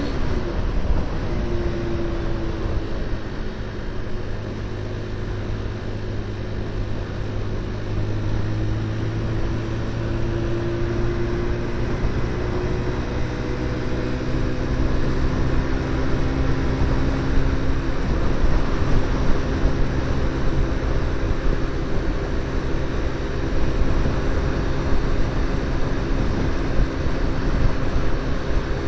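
QJ Motor SRV 125 motorcycle engine and exhaust running under way at a fairly steady speed. The engine note drifts slowly up and down in pitch, over a steady rush of wind and road noise.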